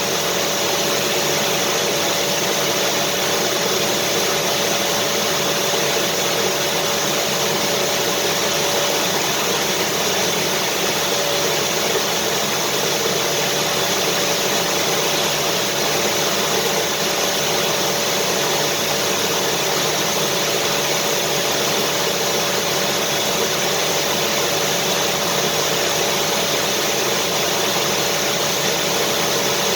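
Vacuum cleaner running steadily, a constant rushing whoosh with a steady mid-pitched hum.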